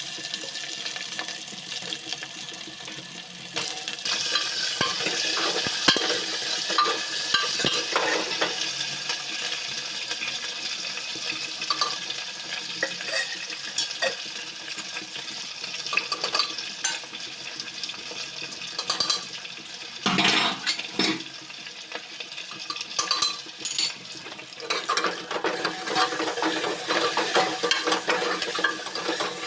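Food sizzling as it fries in hot oil in a pan, with a spoon or spatula stirring and clinking against the pan. The sizzle grows louder about four seconds in.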